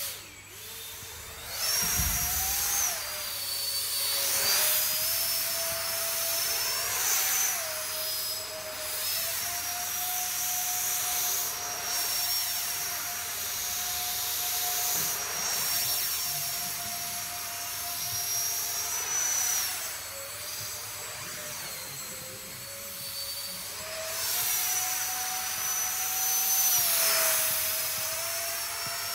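Electric ducted fan of a scratch-built RC jet in flight: a high, steady whine over a rushing fan noise, getting louder about two seconds in and then stepping up and down in pitch several times as the throttle changes.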